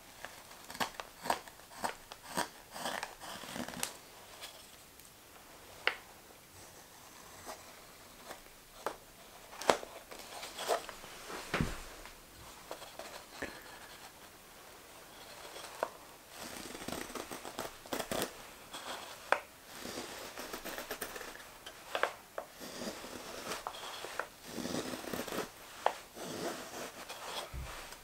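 Carving knife slicing shavings off a green maple spoon: irregular short, crisp cuts and scrapes, with a lull partway through while the spoon is turned in the hands.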